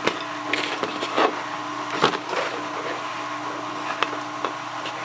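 Scattered short clicks and scrapes of hand work on the gas cap gasket and its material, over a steady electrical hum.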